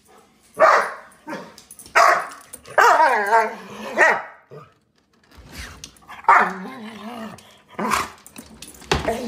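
Large black dog barking repeatedly, a short bark every second or two, with two longer wavering cries, one about three seconds in and one about six to seven seconds in.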